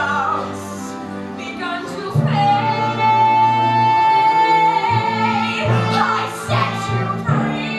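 A woman singing a musical-theatre song over instrumental accompaniment, holding one long high note for about three seconds starting about two seconds in.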